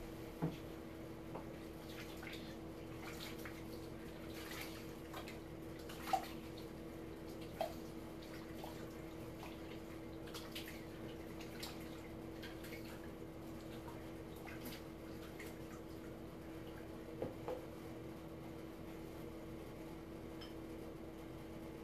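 Face being rinsed with water: faint scattered splashes and drips over a steady hum.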